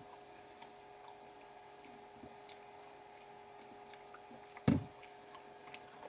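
Quiet chewing and small wet mouth clicks from someone eating a burger and fries, over the steady hum of a small air conditioner. A single low thump about four and a half seconds in is the loudest sound.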